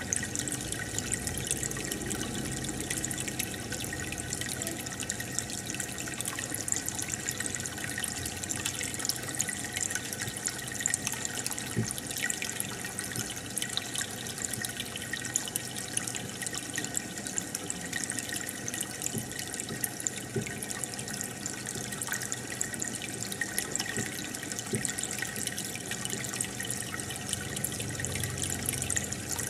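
Aquarium water trickling and bubbling steadily, with many small bubble pops.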